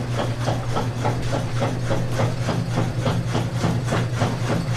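A machine running with a steady low hum and a fast, regular clatter of about five knocks a second.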